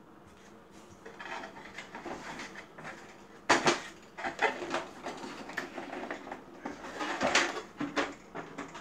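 Handling noise: scattered knocks, clatter and rustling as objects are moved about, with sharper knocks about three and a half and seven seconds in.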